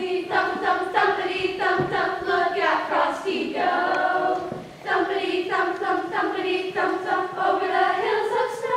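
A group of children's voices singing together in held, sung phrases, with a short break about halfway through.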